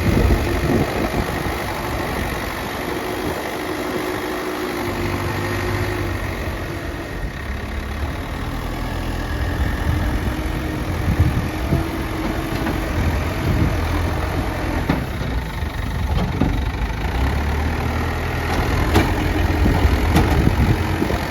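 Diesel engine of a front-bucket earthmover running, its pitch and level rising and falling as the machine works. A few short knocks sound in the second half.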